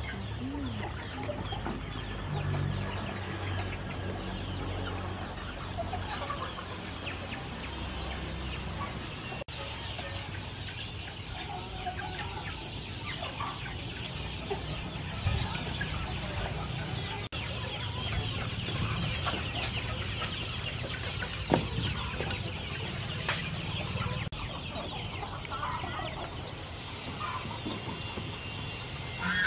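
Chickens clucking over a steady outdoor background, with a couple of brief sharp louder sounds partway through.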